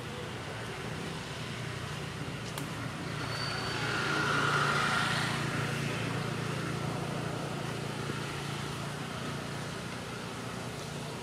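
Steady outdoor background noise with a low hum, and a motor vehicle passing that swells about three seconds in, is loudest near the middle, and fades away.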